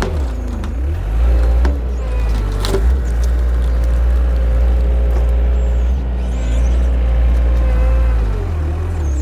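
Engine of a machine used to pull out a tree, running steadily with a low rumble and a steady whine that shifts slightly in pitch. A few short knocks come about a second and a half in and near three seconds.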